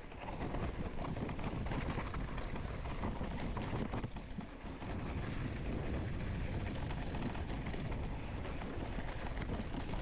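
Mountain bike riding down a dirt singletrack: tyres crunching over dirt and rock, and the bike rattling over the bumps, with wind rushing over the microphone. The noise dips briefly about four seconds in.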